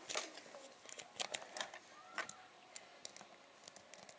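Light irregular metallic clicks and scrapes of a lock pick and tension wrench working the pins inside a Yale 50 mm padlock during single-pin picking.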